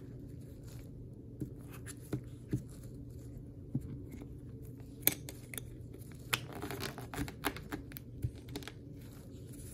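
Scattered clicks and scrapes of a clear plastic screw-type coin capsule as gloved fingers twist its two halves together. There is one sharp click about five seconds in, and a quicker run of clicks a second or two later.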